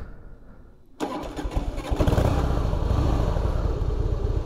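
Harley-Davidson Heritage Softail V-twin being started: a brief crank, then the engine catches about a second in and settles into a steady idle. The owner finds the idle set too low, with the engine perhaps not yet fully warm.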